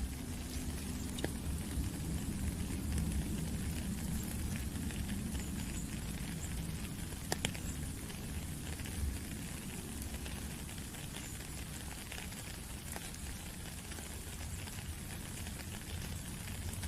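Steady rain pattering, with scattered sharp drips ticking through it over a low gurgling rumble of running water.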